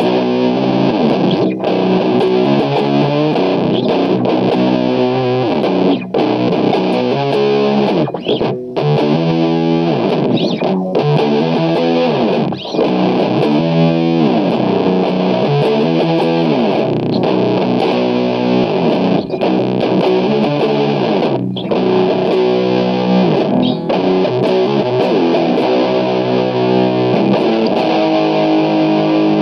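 Heavily distorted electric guitar played through an Orange amp, doom/sludge metal riffing with sustained chords that shift every second or so, broken by a few short gaps.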